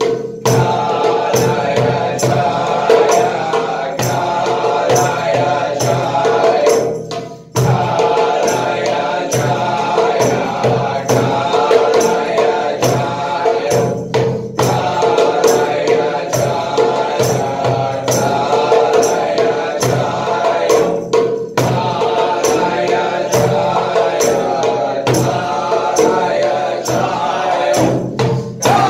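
A mantra chanted by several voices over a steady drone, with hand percussion keeping a steady beat. The chanting breaks off briefly about every seven seconds, as for a breath between phrases.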